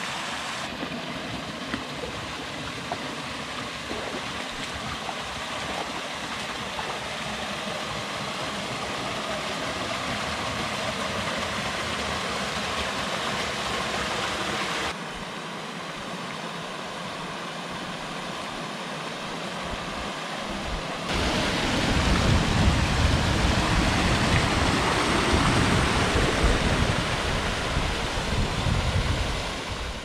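Creek water pouring over small falls and cascades into pools, a steady rush. It changes abruptly twice, and from about two-thirds of the way through it is louder and deeper.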